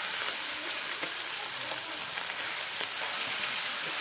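Minced meat sizzling in hot oil in a wok as it is stirred with a metal ladle: a steady frying hiss.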